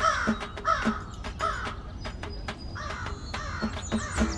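Crows cawing, a series of harsh caws about every half second to a second, with thin high bird chirps near the end.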